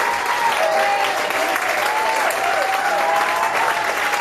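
Audience applauding, with cheers rising and falling over the steady clapping.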